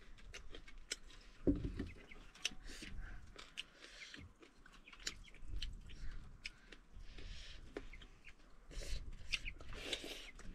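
Close-up chewing and crunching of fried hill frog (paha), bones and all, with wet mouth clicks and smacks at irregular intervals and one heavier thud about a second and a half in.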